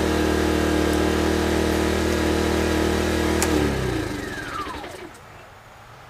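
A 1000-watt inverter generator runs hard under the load of a 5000 BTU air conditioner switched to cool, with a steady, loud hum. About three and a half seconds in, it cuts out and the machinery winds down with a falling whine: the generator cannot carry the air conditioner even with a hard-start capacitor fitted.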